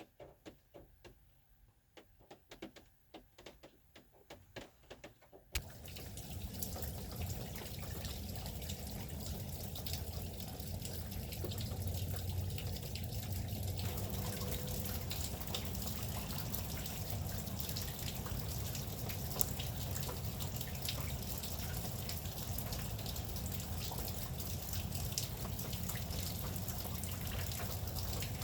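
Rain: first separate drops dripping irregularly, several a second, then about five and a half seconds in a sudden switch to a steady, louder rush of falling rain with a low rumble beneath it.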